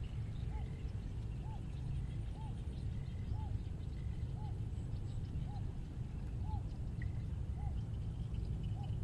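An animal calling in the open: one short note that rises and falls, repeated about once a second, over a steady low rumble.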